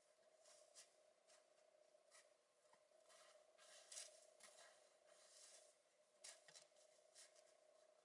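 Near silence: faint, scattered crunches and scrapes of boots shuffling in snow and a metal bar being handled, over a faint steady hum.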